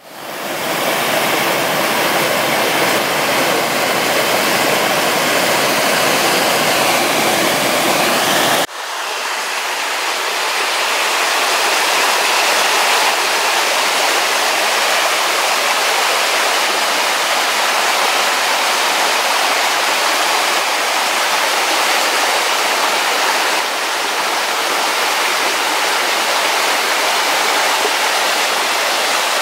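Small forest waterfall and stream rushing over rocks, a steady loud rush of water that fades in at the start. About nine seconds in it changes abruptly to a thinner, lighter rush with less low rumble.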